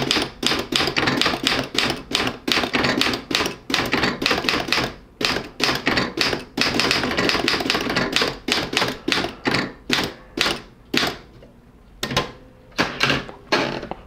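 Manual desktop typewriter, a 1955 Halda Star Model 7, typing a sentence in capitals: a quick, uneven run of typebar strikes that thins out after about ten seconds, then a short pause and a few last strikes near the end.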